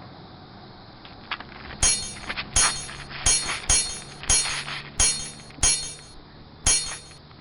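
A run of eight sharp impact sound effects with a brief ringing tail, dubbed in, coming roughly every half second to second.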